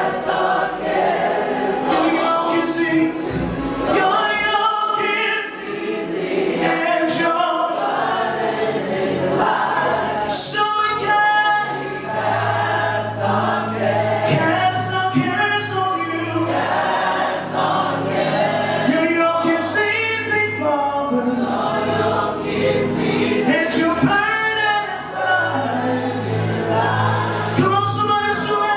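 Live gospel choir singing praise music with band accompaniment, recorded slightly crackly on a camera's built-in microphone. A steady low bass comes in about twelve seconds in.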